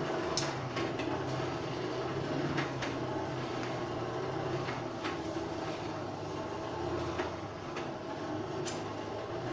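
Coal forge fire with its air blast running: a steady rumble and low hum, with a few light clinks of metal scattered through it.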